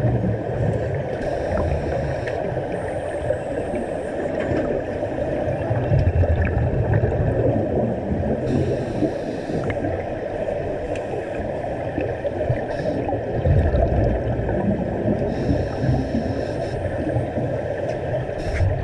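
Underwater sound through a GoPro's waterproof housing: a scuba diver breathing through a regulator, with exhaled bubbles gurgling in a low rumble about every seven seconds and short hisses of air in between.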